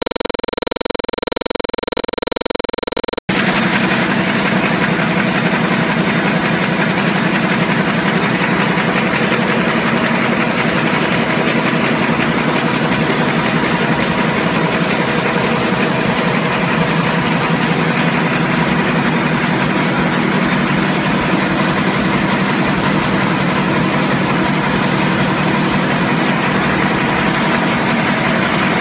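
Web offset newspaper printing press running at production speed: a dense, steady mechanical clatter and hum from the units and folder. For about the first three seconds a different steady drone is heard instead, cut off abruptly.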